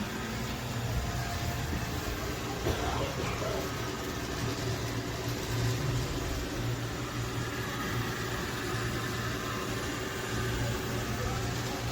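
AIRROBO T20+ robot vacuum running with a steady motor hum, with a light knock about three seconds in.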